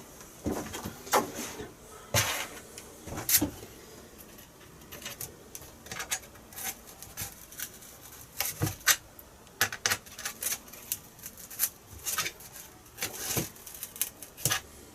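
Irregular clicks, taps and scrapes of hands working a carbon fibre spar into the slot of a foam wing, with a brief lull a few seconds in.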